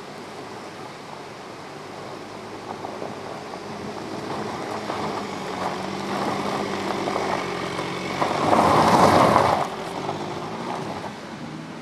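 VW Passat Alltrack driving past: engine and tyre noise grow louder as the car approaches, peak in a loud rush as it passes close about eight and a half seconds in, then fade.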